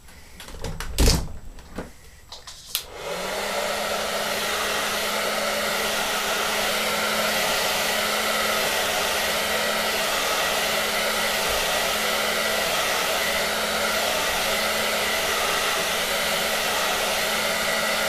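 Handheld hair dryer switched on about three seconds in, then running steadily, an even airflow hiss with a low motor hum under it, as it blows on damp hair. Before it starts there is a sharp knock about a second in.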